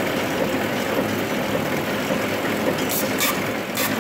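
Horizontal flowpack packaging machine running with a steady mechanical hum. From about three seconds in, short hisses come roughly twice a second.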